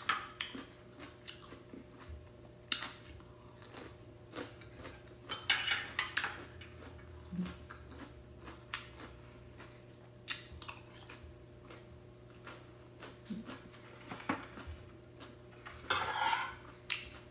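Close-up chewing and mouth sounds of a person eating soft sticky rice, with scattered small clicks and a few brief hissy bursts.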